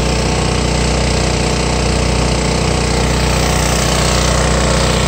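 A farm vehicle's engine running at a steady speed, a low, even drone that does not change.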